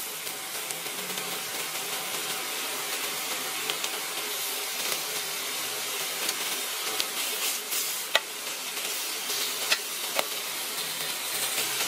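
T-bone steak sizzling in a hot cast-iron grill pan: a steady hiss with many small crackles and pops, and a few sharper clicks in the second half.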